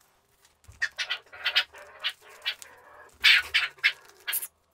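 A dog barking at the mailman: a run of about ten short, sharp barks in quick groups, loudest about three seconds in.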